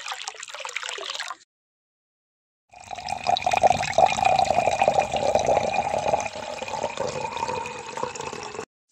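Water sloshing as a small steel cup is dipped into a shallow trough, then, after a short pause, a thin stream of water poured from a small steel cup into a small metal pot, trickling and splashing steadily for about six seconds before stopping.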